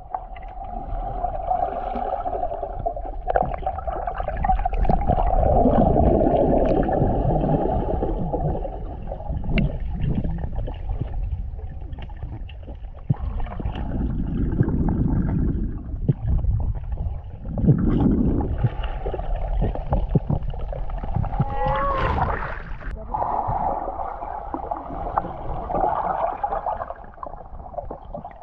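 Muffled underwater sound of lake water picked up below the surface during a freedive: a low rumble and gurgling from the water's movement, with a steady hum throughout and a few louder swells.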